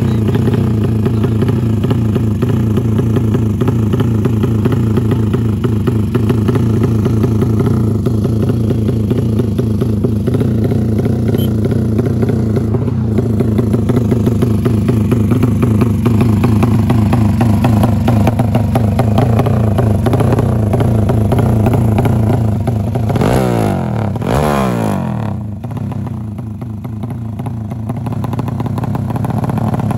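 Drag-tuned motorcycle engine running steadily at held revs through its exhaust, then blipped several times, its pitch sweeping up and down about three-quarters of the way through. The revs climb again near the end.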